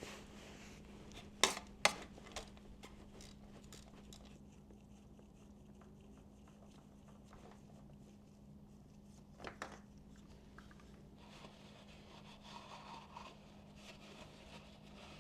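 A few faint sharp clicks and knocks over a steady low hum.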